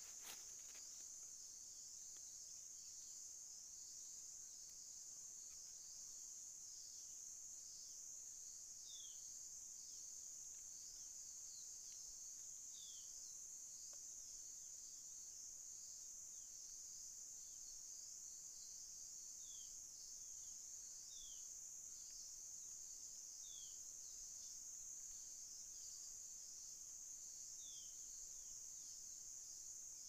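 Steady high-pitched insect chorus in woodland, with a short falling chirp repeating every few seconds, about six times, and a single click near the start.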